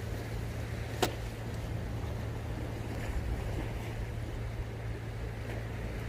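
Steady low rumble of seaside outdoor ambience, with one sharp click about a second in.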